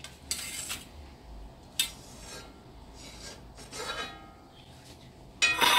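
Steel spoon scraping through sticky crushed peanuts and caramelised sugar in a steel plate as the hot chikki mixture is spread flat. There are several short scrapes a second or two apart, and a louder clatter of metal near the end.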